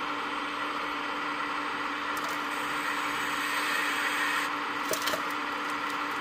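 Hydraulic pump of a 1/14-scale RC Volvo excavator whining steadily as the boom and bucket work. About five seconds in come a few sharp clatters as stones drop from the bucket into the RC dump truck's bed.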